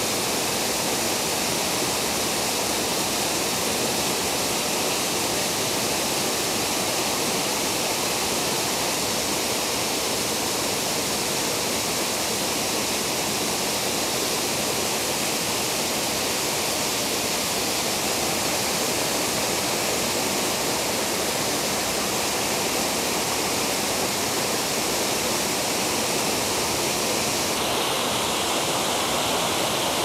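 Waterfall on Spruce Brook pouring over a rock ledge into a pool, a steady rushing hiss; the brook is running high after heavy rain. Near the end the hiss shifts slightly in tone as a smaller cascade over rocks comes in.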